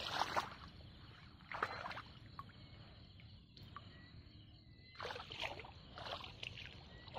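Wading steps in rubber waders sloshing through shallow marsh water and wet grass: a couple of steps at the start, one about one and a half seconds in, and a run of steps from about five seconds in, quieter in between.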